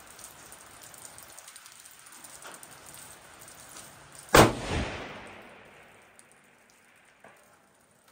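A single rifle shot from a Seekins Havak PH2 bolt-action rifle in 6.5 Creedmoor about four seconds in, with a weaker second crack a moment later and the report dying away over a second or so. A faint click follows near the end.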